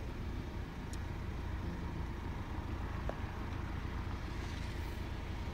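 Steady low rumble of wind buffeting the microphone, gusting unevenly.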